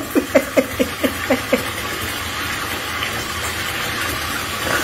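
A baby's rapid string of short falling 'ah' sounds, about four a second, fading out over the first second and a half. Underneath, steady running water from a tap into a bathtub.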